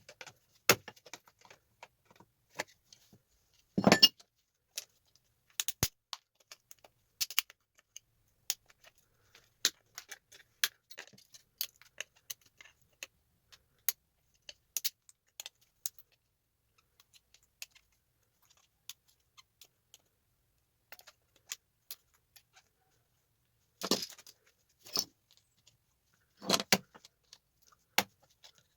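Irregular small metallic clicks and clinks as tactile switches are worked off circuit boards and handled, with a louder clatter about four seconds in and two more near the end.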